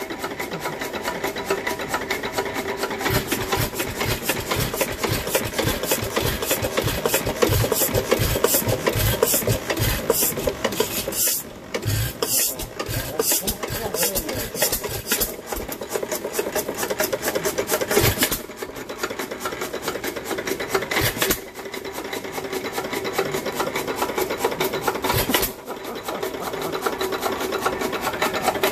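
Early-1900s hit-and-miss engine running, its big flywheels spinning, with a fast, steady mechanical clatter that dips briefly a few times.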